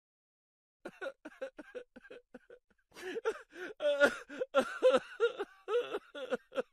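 High-pitched, rapid giggling laughter in quick bouncing syllables, starting about a second in and getting louder about three seconds in.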